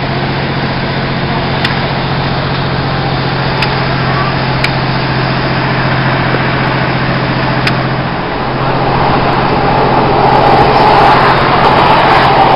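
Class 156 diesel multiple unit heard from inside the carriage, pulling away from a station and gathering speed: a steady note from its underfloor Cummins diesel engine, with a few sharp clicks. About eight seconds in the engine note changes, and the running noise then grows louder.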